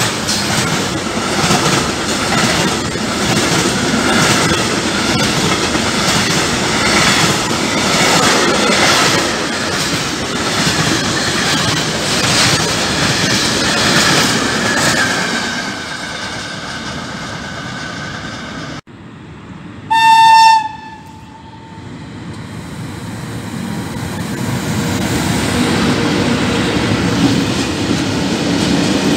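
Freight train wagons rolling past close by, wheels clattering over the rail joints. Near the end, after a sudden cut, a single short locomotive horn blast of under a second, then another freight train's wheels growing louder as it passes.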